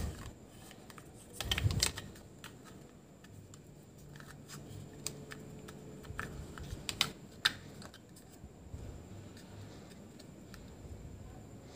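Small scattered clicks and taps of plastic parts being handled as a circuit board and its charging-jack wire are pressed into a plastic aerator housing, with a few sharper ticks about seven seconds in.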